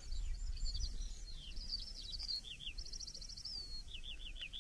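Skylark singing: a continuous high, fast warbling song of slurred notes and rapid trills, over a low rumble.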